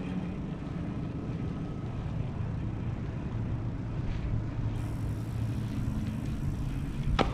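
Steady low rumble of a bicycle being ridden, with wind and road noise on the microphone, and one sharp click near the end.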